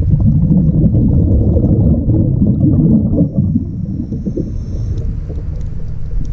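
A diver's exhaled breath bubbling out of the regulator, picked up by a camera underwater: a loud, low bubbling for about three seconds that then eases off.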